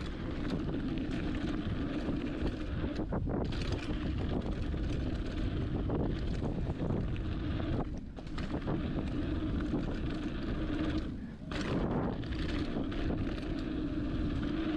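Wind rushing over the camera microphone and the tyres of a hardtail mountain bike rolling on a dry dirt trail at speed, a steady noise that drops briefly a few times.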